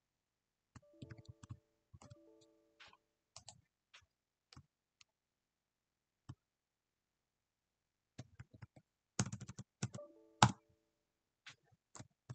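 Computer keyboard keystrokes and mouse clicks in irregular bursts, sparse at first and densest and loudest about nine to ten seconds in. A few of the clicks are followed by a short pitched ringing.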